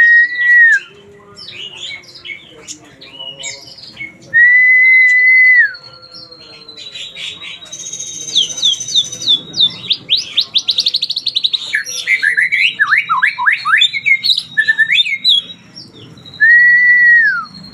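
White-rumped shama (murai batu) singing a varied song. Three times it gives a loud, long, level whistle that drops at the end. Between the whistles come quick chirps, trills and a fast run of falling sweeps, the learned and mimicked phrases (isian) of a bird in full song.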